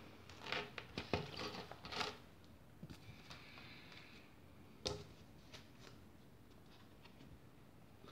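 Faint rustling and crinkling of plastic record sleeves being handled, in clusters with a few small clicks and one sharper click about five seconds in.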